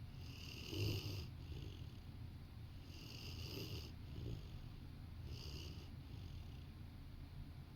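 A sleeping Rottweiler snoring: a low rumble with three slow, breathy snoring breaths, about two to two and a half seconds apart.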